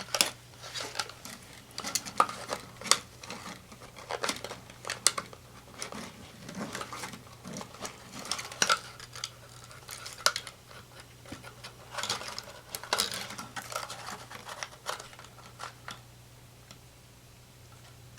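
Irregular small plastic clicks and taps from handling a Blade 120 SR mini helicopter as its canopy is pressed back on, thinning out near the end.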